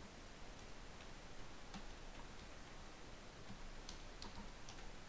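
Keystrokes on a computer keyboard: faint, irregular clicks while typing, with a quicker run of them about four seconds in, over a steady background hiss.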